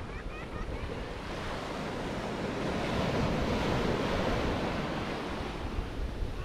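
Small waves breaking and washing up onto a sandy beach, the surf swelling louder about halfway through as a wave rushes in, with wind rumbling on the microphone.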